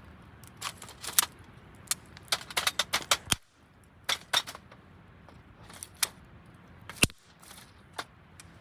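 Irregular sharp clicks and knocks of hard objects being handled, in quick clusters over the first few seconds, then a few single louder knocks.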